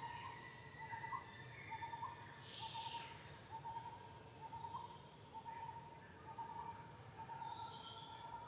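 A bird calling a long run of short notes at one unchanging pitch, about one and a half notes a second, over forest background noise. A brief hiss cuts in about two and a half seconds in.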